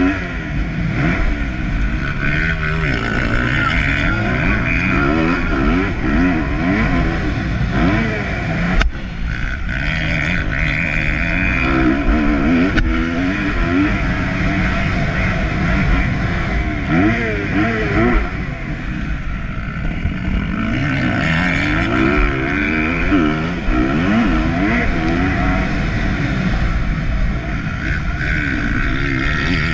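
Motocross bike engine revving hard and dropping back again and again as it is ridden around a dirt track, heard from the bike itself with wind noise on the microphone. A sharp knock comes about nine seconds in.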